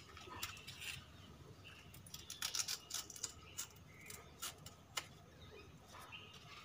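Scattered light scrapes, clicks and rustles of hands working in potted plants, poking at the soil and picking at leaves. There is a cluster of sharper clicks about two to three seconds in and a single click at about five seconds.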